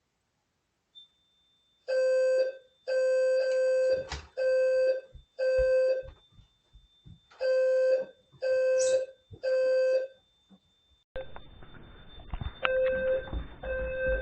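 Fire alarm horns sounding in pulses of about half a second, in groups of three with a longer pause between (the temporal-three evacuation pattern), starting about two seconds in, with a steady high-pitched beep underneath. The alarm was set off by the attic heat detector, which the owner suspects is faulty. Near the end, knocking and handling noise comes in and the horns sound fainter.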